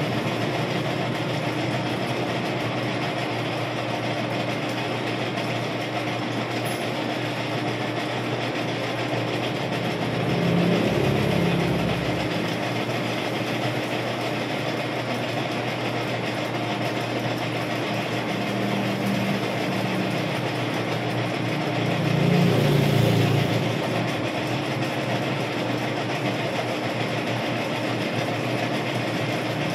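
Metal lathe running with a steady mechanical hum and whir. It swells louder and lower for a second or two about ten seconds in, and again about twenty-two seconds in.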